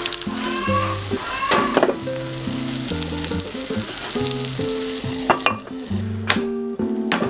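Food sizzling as it fries, with stirring in the pan and a few sharp knocks of a utensil.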